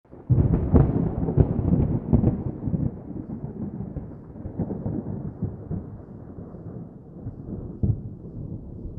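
Thunder: a sudden crackling clap breaks in just after the start and rolls on as a low rumble that slowly fades, with one more sharp crack near the end.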